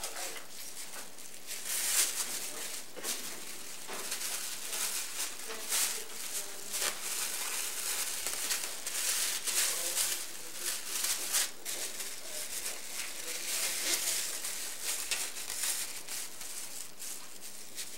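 Thin plastic grocery-bag strips crinkling and rustling as they are looped through each other and pulled into knots, in an irregular run of crackles.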